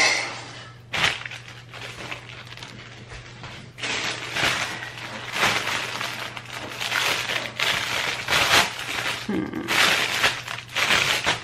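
Clear plastic bag crinkling and rustling in repeated bursts as a garment is handled and bagged, busiest in the second half.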